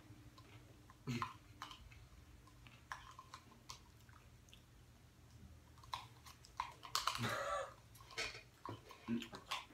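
Faint chewing and mouth noises of someone eating McDonald's fast food, with scattered small smacks and clicks. One louder sound lasting about half a second comes about seven seconds in.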